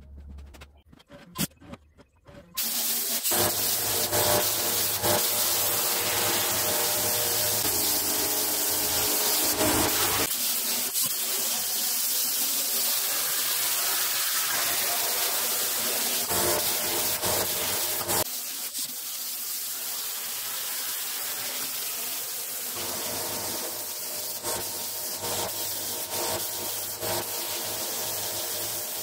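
CNC plasma cutter torch cutting steel plate: a loud, steady hiss of the arc and its air jet that starts about two and a half seconds in, after a few sharp clicks.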